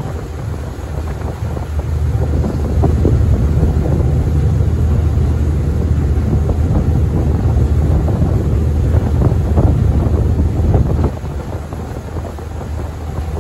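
Small passenger ferry's engine running at cruising speed with a steady low drone, while wind buffets the microphone in gusts.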